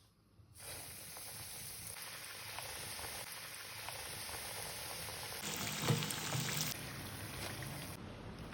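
Breaded chicken strips frying in hot oil: a steady sizzle with fine crackles. About five and a half seconds in it grows louder and fuller for just over a second, with a thump.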